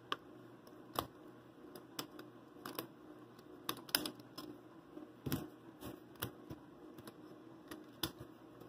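Plastic Rubik's Snake-style wedge puzzle being twisted by hand, its segments clicking as they turn against each other. The clicks are sharp and irregular, about one or two a second.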